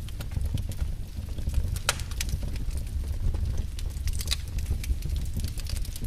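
Wood fire crackling: frequent irregular sharp pops and snaps over a steady low rumble of the burning fire.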